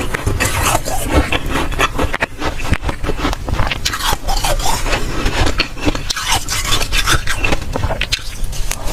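Close-miked crunching of soft, dry freezer frost: a dense, uneven run of crisp crackles and scrapes.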